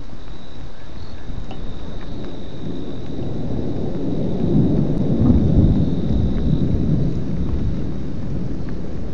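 Thunder rumbling low, swelling about two seconds in, loudest around the middle, then dying away. A steady high insect trill carries on behind it.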